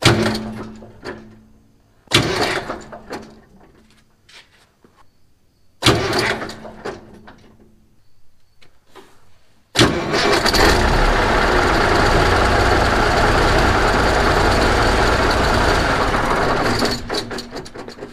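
Truck starter bumped three times in short bursts, each turning the diesel engine over briefly, then engaged for a longer steady stretch of about seven seconds that stops near the end. The starter is being used to inch the engine round so a clutch-brake bolt comes to the bottom.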